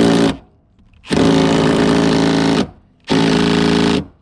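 A power tool with a Torx 50 bit running in three steady bursts on a rear seat-belt anchor bolt as it works the bolt loose. The first burst stops shortly in, the longest lasts about a second and a half, and a shorter one follows near the end.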